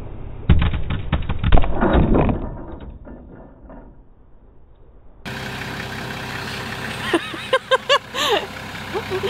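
A sudden run of sharp snaps and heavy clattering as the fishing-line loops break and the hanging car drops, loudest about a second and a half in, then dying away. After a break, a Nissan forklift's engine idles steadily, with a few short voice sounds near the end.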